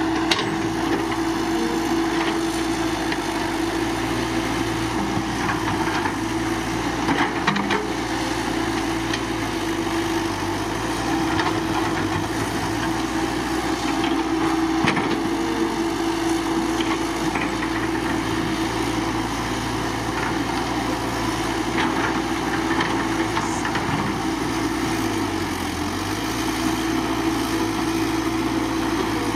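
Caterpillar 312BL excavator's diesel engine running steadily, with occasional short knocks and clunks from the machine working.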